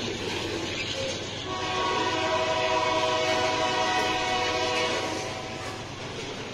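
Freight train of grain hopper wagons rolling past with steady wheel-on-rail noise. A locomotive's multi-tone air horn sounds from about a second and a half in and holds for about three and a half seconds, then stops.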